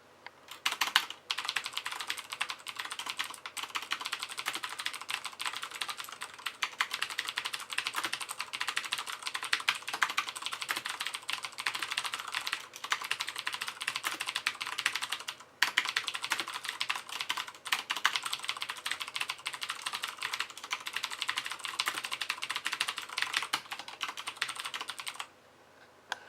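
Continuous fast typing on a Hansung MCF7 mechanical keyboard with Cherry MX Blue switches: a dense run of clicky keystrokes with a few brief pauses, stopping about a second before the end.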